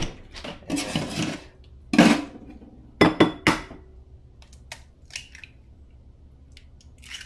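Clinks and clatter of dishes at a stainless-steel kitchen sink. About three seconds in, an egg is rapped three times in quick succession on the rim of a ceramic bowl and cracked open, followed by a few faint clicks of shell.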